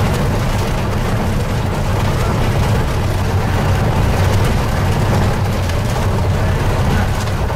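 Steady low rumble of a vehicle driving along an unpaved dirt road: engine and tyre noise heard from inside the vehicle.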